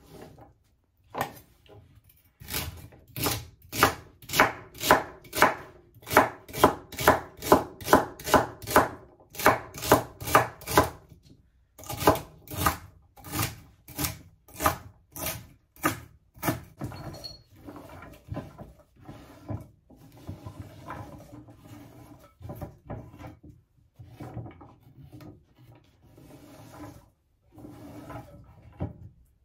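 Knife chopping celery on a cutting board in steady strokes about two a second. After about 17 seconds the chops turn softer and less regular.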